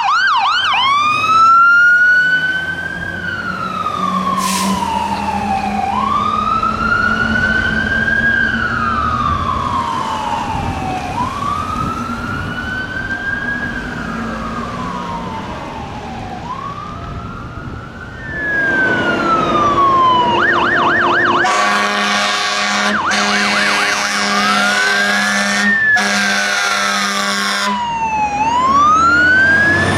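Fire truck electronic siren on a slow wail, rising and falling about every five seconds, switching briefly to a fast yelp, then a truck air horn sounding three long blasts over the siren. A heavy diesel engine runs underneath.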